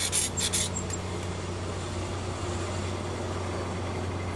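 A few quick metal-on-metal scraping strokes at the knuckle of a rolled sheet-metal hinge, stopping about half a second in. A steady low hum of background noise follows.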